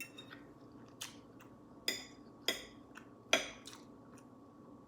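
A person chewing food, with a few short, sharp wet mouth smacks.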